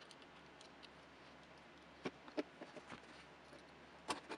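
Faint, sharp clicks and light taps of a hex driver and small metal gimbal parts being handled on a tabletop while the pitch motor's hex screws are fitted. A cluster of clicks comes about two to three seconds in, and two more near the end.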